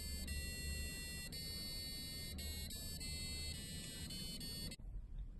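Small speaker driven by an Arduino playing a melody of buzzy electronic beep notes, each held from a fraction of a second to about a second before the pitch changes, stopping suddenly near the end. It is the tune the Morse-code lock plays when the correct password is entered.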